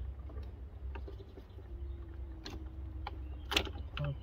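Hands working a diesel fuel filter housing and its hoses loose in a car's engine bay: a few sharp plastic clicks and knocks, the loudest near the end, over a steady low rumble.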